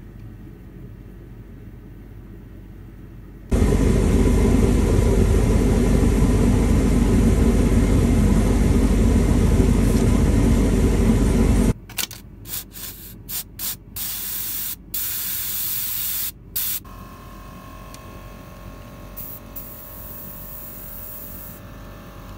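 Compressed-air blow gun blasting air through a fuel line fitting by the fuel filters on a 1977 International Harvester 574 diesel. One long steady hiss of about eight seconds cuts off suddenly and is followed by several short blasts.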